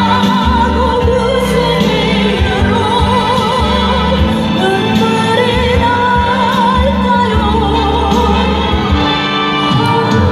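Music: a slow Korean ballad, a female voice singing long notes with heavy vibrato over a steady backing track.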